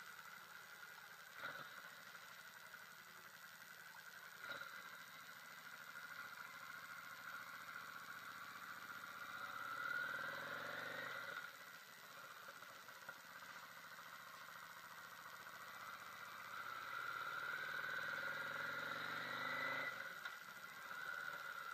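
Yamaha V Star 650's air-cooled V-twin heard on the move through a helmet camera, rising in pitch as it accelerates about halfway through and again near the end, each time dropping off as the throttle closes. Two short clicks in the first few seconds.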